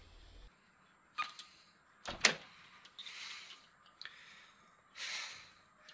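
Apartment front door being handled: a latch click about a second in, then one sharp bang about two seconds in, followed by softer short rushes of noise and a click.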